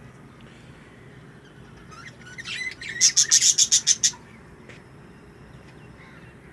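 Budgerigars chirping: a few softer chirps about two seconds in, then a quick run of sharp, high chirps lasting about a second.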